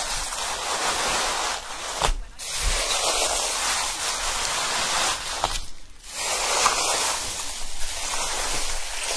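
Steady rushing noise, like surf or running water, that swells and fades and cuts out briefly about two seconds in and again about six seconds in.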